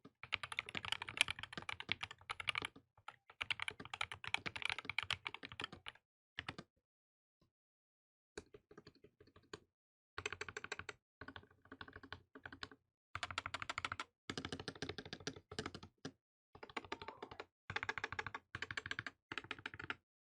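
Tezarre TK63 Pro mechanical keyboard with Gateron optical black switches being typed on in bursts of rapid keystrokes, with short pauses between bursts and a longer pause about a third of the way in.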